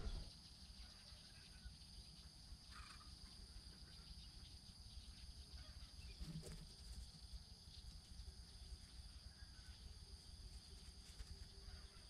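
Near silence: faint outdoor ambience with a steady high-pitched tone.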